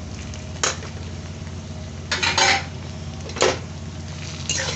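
A spoon scraping and stirring okra in a kadhai: four separate scrapes against the pan, the longest about two seconds in, over a steady low hum.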